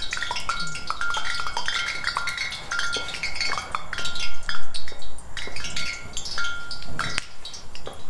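Chimes tinkling: many light, irregular metallic strikes ringing out at several pitches.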